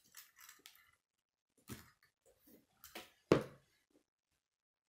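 Plastic K'nex pieces clicking and knocking as they are handled and snapped together, with light rustling at first and a few separate knocks, the loudest a little over three seconds in.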